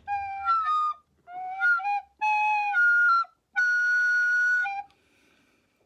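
Wooden recorder playing a short melody in four phrases with brief breaks between them, the last note held for about a second.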